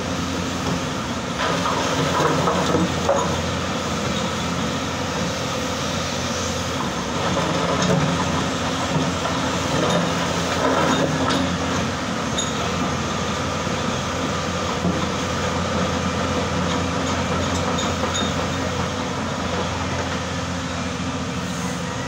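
Hyundai crawler excavator's diesel engine running steadily under working load, with scattered knocks and scrapes of stones as the bucket works a rock pile.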